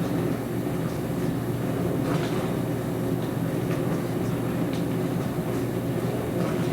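Dishwasher running through its wash cycle: a steady low hum of the pump and spraying water, with a few faint ticks.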